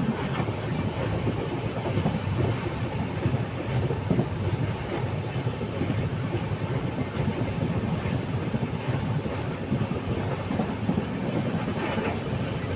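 Train running at speed, heard from inside a carriage by an open barred window: a steady rumble of wheels on the rails.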